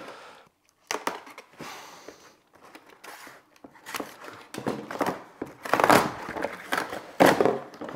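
A utility knife slicing along a long cardboard box, then the cardboard being pulled and torn open, with uneven rustling and scraping and a few sharper rips.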